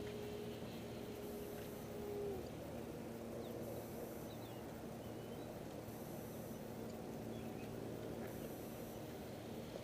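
Radio-controlled Yak 54 aerobatic plane's motor droning steadily in flight at a distance, one tone dropping in pitch about two seconds in. A few faint chirps sound over it.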